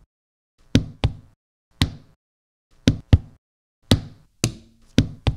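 Hand hits on a tabletop, recorded as raw material for drum triggering, playing back as a beat-like pattern of about nine knocks. Some knocks are dull and deep, others sharper and brighter.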